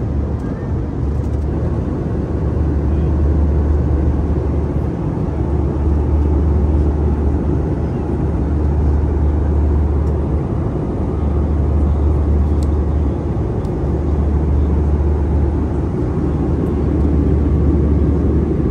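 Cabin noise of an Airbus A320 in flight: a steady rush of airflow and engine drone, with a deep rumble that swells and drops every few seconds.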